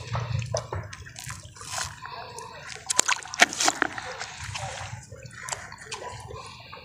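Shallow lake water splashing and sloshing at the shore in irregular bursts, with a cluster of sharper splashes about three seconds in.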